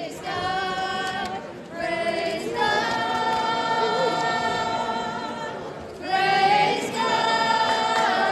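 A group of voices singing without instruments, in long held notes with short breaks between phrases.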